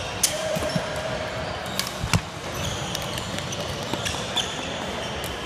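Badminton play on a wooden sports-hall court: sharp racket strikes on the shuttlecock, the loudest about two seconds in, and short sneaker squeaks on the floor, with the steady din of the hall behind.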